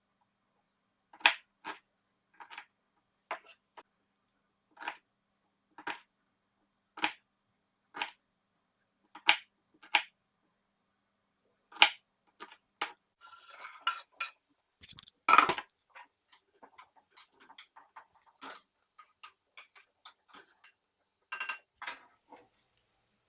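A series of sharp clicks and knocks, roughly one a second at first, then a busier patch with one louder clack about two-thirds of the way through, followed by fainter scattered ticks.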